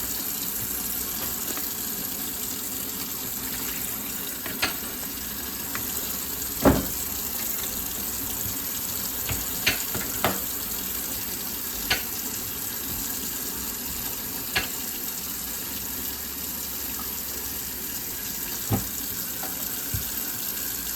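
Kitchen tap running steadily into a sink, switched on right at the start, with a few short knocks and clinks of things handled in the sink.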